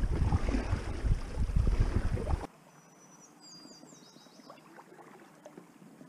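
Wind buffeting the microphone over water rushing and splashing past a paddled packraft, loud and rumbling. About two and a half seconds in it cuts abruptly to quiet, and a small bird sings a short run of quick falling notes.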